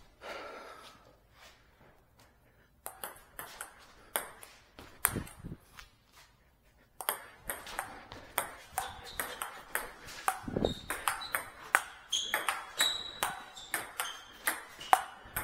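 Table tennis ball clicking off the bats and the table: a few separate clicks at first, then from about halfway through a steady rally, two to three clicks a second.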